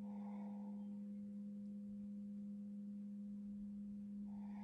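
Crystal singing bowl sustaining one steady, pure low tone with a fainter higher overtone, the Zeal Chakra bowl's healing note held unchanged.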